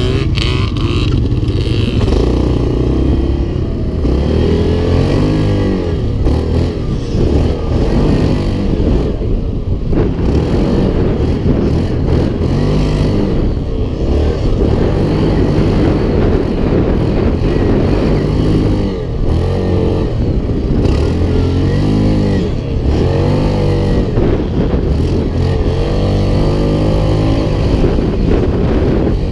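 Yamaha Grizzly 700 quad's single-cylinder four-stroke engine running under way, its pitch rising and falling over and over as the throttle is opened and eased off.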